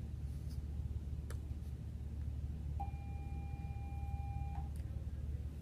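Steady low hum, with one steady electronic-sounding beep lasting nearly two seconds in the middle and a couple of faint clicks.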